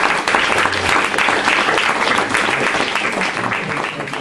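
Audience applauding: a dense patter of many hands clapping that begins to die down near the end.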